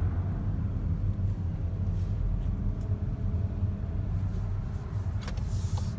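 Car cabin noise while driving along a street: a steady low rumble of engine and tyres, with a short hiss near the end.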